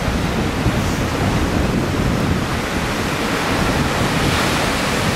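Lake Michigan surf breaking on the shore in a steady rush, with wind buffeting the microphone.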